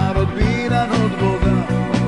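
Rock band playing an instrumental passage: bass and drums keep a steady beat of about four pulses a second under a gliding melody line from electric guitar or keyboards.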